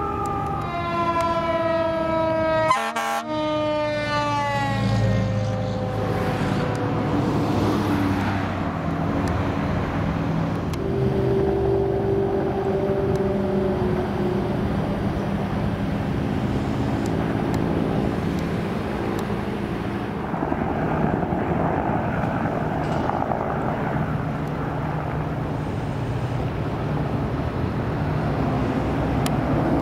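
An emergency vehicle's siren, its pitch falling slowly and steadily over the first eight seconds or so. Then steady engine noise with a low hum.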